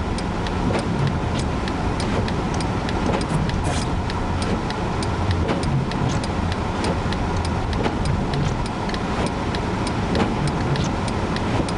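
Car driving slowly through a blizzard, heard from inside the cabin: a steady low engine and road rumble with frequent, irregular sharp ticks over it.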